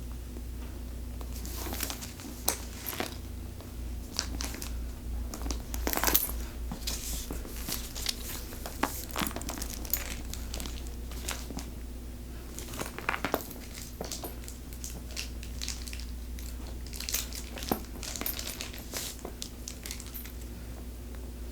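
Gift-wrapping paper being pulled off and crumpled by hand: irregular crinkling and rustling with scattered sharp crackles, over a faint steady low hum.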